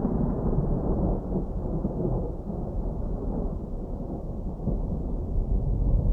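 Distant thunder rumbling low and continuously, swelling louder near the end.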